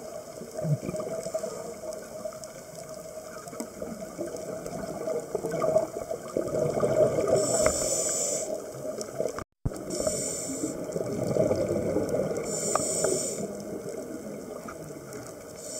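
Scuba diver breathing through a regulator underwater: bubbling, gurgling exhalations and short hissing intakes every few seconds. The sound briefly cuts out about halfway through.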